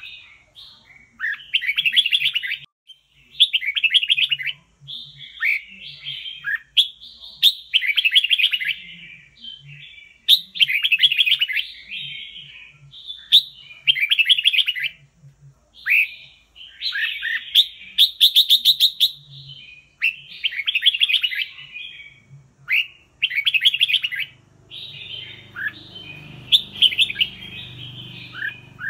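Red-whiskered bulbul singing: short, bright warbled phrases about a second long, repeated every second or two with brief gaps.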